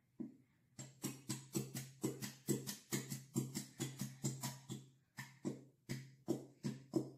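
Plastic squeeze bottle of Elmer's glitter glue being squeezed repeatedly, the last glue and air sputtering out of the open nozzle in a quick run of squelchy squirts, about five a second, with a brief pause about five seconds in. The bottle is nearly empty.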